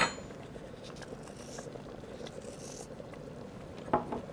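Faint, soft sprinkles of salt falling into a pot of soup, then a light knock about four seconds in as a small salt bowl is set down on a wooden counter.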